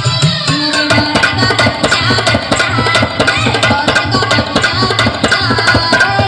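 Loud music played over a DJ sound-box system: rapid, dense tabla-style drumming under a wavering melody line.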